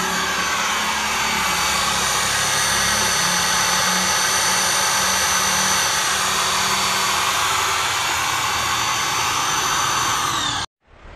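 Electric drill running steadily at high speed, driving a homemade PVC-pipe water pump. The sound cuts off suddenly near the end.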